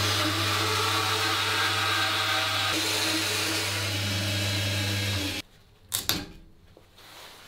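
Electric motor of a woodworking power tool running steadily with a low hum, cutting off suddenly about five seconds in, followed by a couple of knocks.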